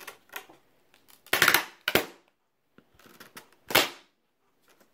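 Potato peeler being forced into the packaging of a boxed air compressor: a few short, sharp cracks and scrapes. The loudest comes just over a second in, with more near two and four seconds and a couple of small clicks at the start.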